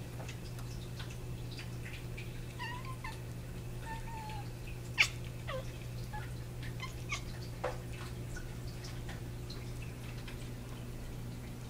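Young kitten giving a few short, soft meow-like calls while hunting a small flying bug on the wall, with one sharp tap about five seconds in.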